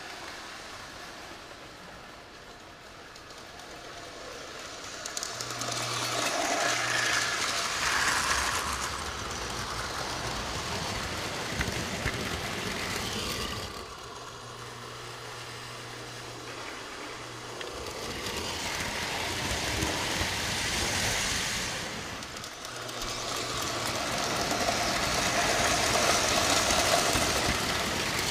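Model trains rolling on metal track, a rushing rumble that swells and fades several times as the trains pass close by. A low electric hum comes and goes in short stretches.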